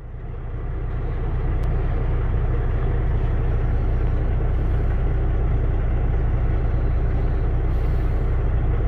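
Semi-truck diesel engine idling, heard from inside the cab: a steady low drone that fades in over the first second or two.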